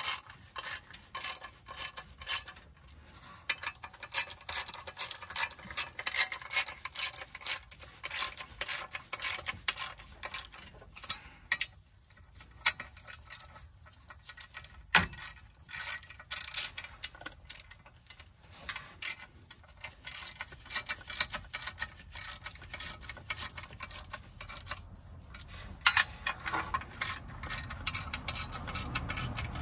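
Socket ratchet wrench clicking in quick runs as the clutch pressure plate bolts are tightened onto the flywheel, drawing the plate down to compress the new clutch disc. There are short pauses and two louder knocks.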